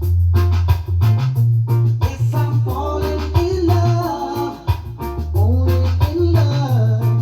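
Reggae music with a heavy bass line and a steady drum beat. A lead melody comes in about three seconds in.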